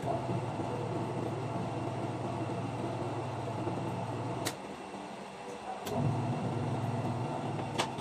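Washing machine wash motor running with a low hum, stopping with a click about four and a half seconds in and starting again with a click a second and a half later for another second or so, with a further click near the end: the stop-start wash action under a newly fitted manual wash timer.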